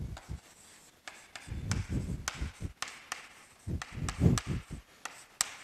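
Chalk writing on a chalkboard: an uneven string of short taps and dull knocks as the chalk strikes and drags across the board.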